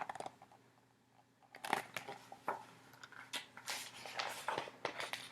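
Paper rustling and crinkling as a picture book is handled and its pages are turned. It comes as a string of short, irregular crackles, starting about a second and a half in.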